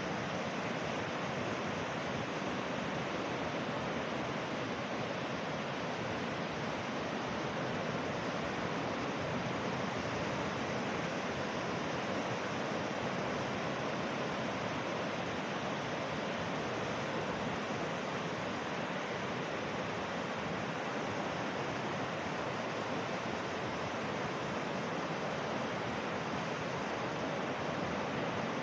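Steady, unbroken rushing of water, an even hiss with no surges or breaks.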